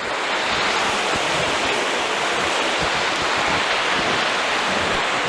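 Steady rush of water from a stream flowing through a limestone cave.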